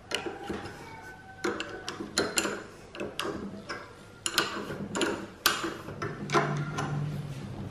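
Open-end spanner clinking on the hex nuts of long steel M8 bolts as they are turned down to compress a spring-loaded flange. Irregular metallic clicks and taps as the spanner is set on and repositioned.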